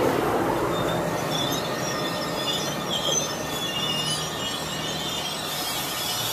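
NJ Transit Multilevel commuter train cars rolling past with a steady rumble, their wheels squealing in high, thin tones that come and go from about a second and a half in.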